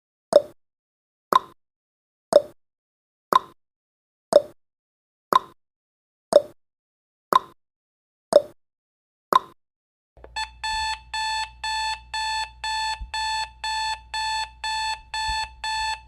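Countdown timer sound effect: a short tick that drops slightly in pitch, once a second, ten times. Then, about ten seconds in, as the timer reaches zero, an alarm-clock beeping starts: a high beep pulsing about three times a second over a faint low hum.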